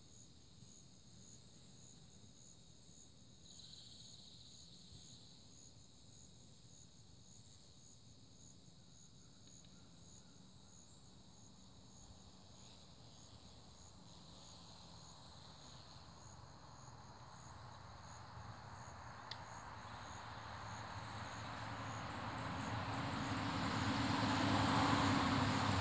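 Insects trill steadily in a high, rapidly pulsing chorus. Over the second half a motor vehicle approaches, its engine noise swelling steadily and loudest near the end.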